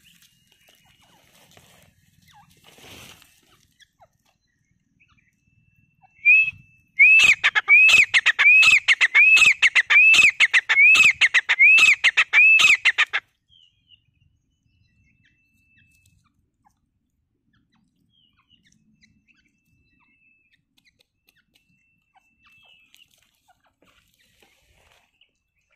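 Grey francolin calling: a loud, shrill series of about a dozen repeated notes, about two a second, each rising and falling in pitch. It starts about six seconds in and stops abruptly some seven seconds later.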